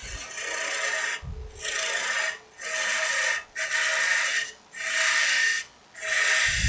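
A turning tool cutting into the end grain of a dry aspen goblet blank spinning on a wood lathe, hollowing out the centre. The cuts come as six hissing passes of about a second each, with short pauses between them.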